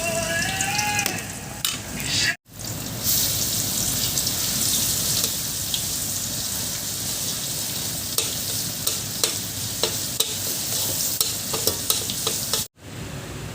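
Food sizzling as it fries in a pan while being stirred, with a utensil clicking and scraping against the pan now and then. The sound cuts out briefly twice.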